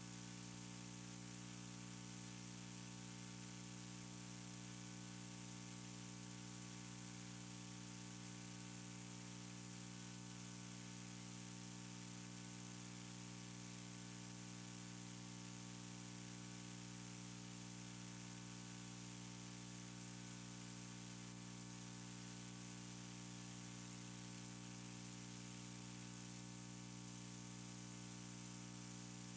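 Steady electrical hum and buzz with a faint hiss from the audio setup, unchanging throughout, with no other sound on top.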